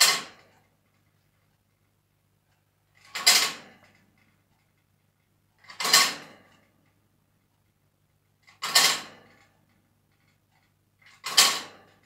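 African grey parrot giving five rasping, unpitched screeches, each about half a second long and about three seconds apart: angry calls from a bird demanding its dinner.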